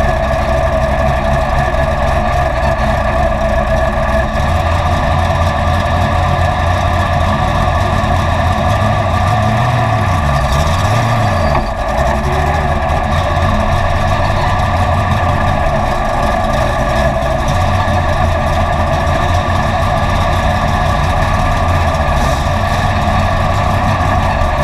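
BriSCA F1 stock cars' V8 engines running, a loud continuous engine noise, with the low engine pitch dipping and rising twice about ten seconds in.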